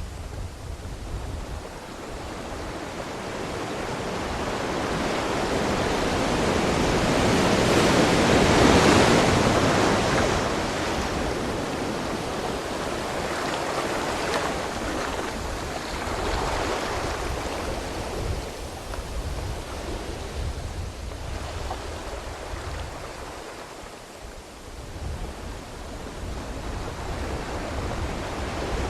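Ocean waves breaking and washing on a shore: the surf builds to a loud crash about eight seconds in, then falls back to a steadier wash with smaller surges and a brief lull near the end before it swells again.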